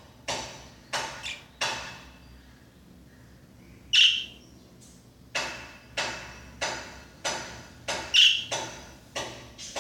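Pet budgie giving two short, loud high chirps, about four seconds and eight seconds in, amid a series of sharp ringing taps coming one to two a second, with a pause of about three seconds in the middle.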